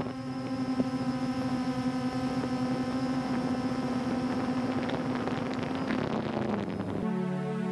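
Quadcopter drone's motors and propellers humming steadily at one pitch, heard from on board the aircraft. Music comes in near the end.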